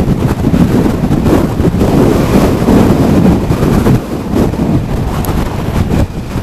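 Strong, gusty wind buffeting the camera microphone: a loud, low, uneven rumble that surges and eases, dipping briefly about four seconds in. It is turbulent wind bouncing off the rock cutting beside the road.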